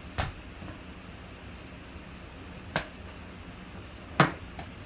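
A few sharp clicks and taps of a knife blade against a small cardboard box as its taped seal is slit, about a second in, near the middle and loudest near the end, over a faint steady hum.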